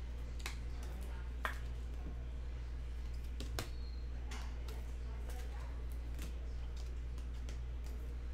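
Scattered light plastic clicks and ticks from trading cards being slid into rigid plastic top loaders, with a sharper click about a second and a half in and another about three and a half seconds in. A steady low hum runs underneath.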